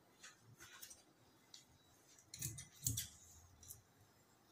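Tailor's scissors snipping through cloth: a string of short, crisp cuts, with two duller knocks a little past the middle.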